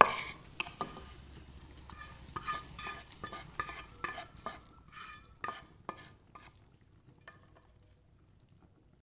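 Spatula scraping and tapping sautéed spice paste out of a pan into a pot of soup: irregular scrapes and clicks that die away after about six seconds.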